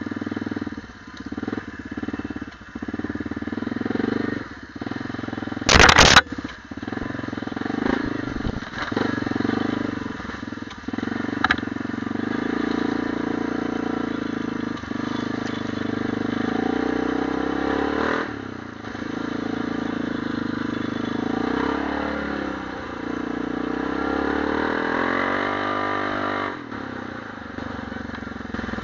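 ATV engine running under way on a dirt trail, its pitch rising and falling with the throttle. There is one loud sharp knock about six seconds in.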